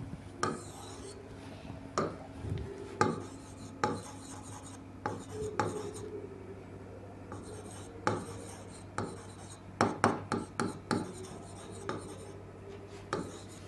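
Marker pen writing on a whiteboard: a run of short, uneven scraping strokes as the letters are written.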